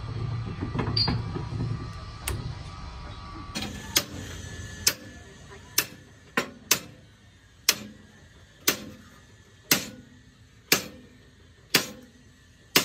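Hammer blows on the steel steering knuckle of a truck front axle, sharp ringing strikes at about one a second, after a few seconds of low rumbling and knocking as the axle is handled.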